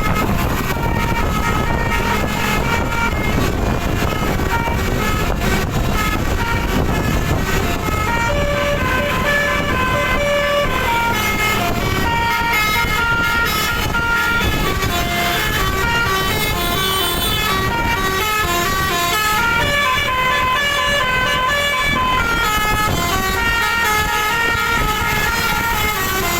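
Indonesian 'telolet' bus horn, a multi-tone air horn, sounding a rapid melody of short stepped notes over and over, with the rumble of the bus and road traffic underneath.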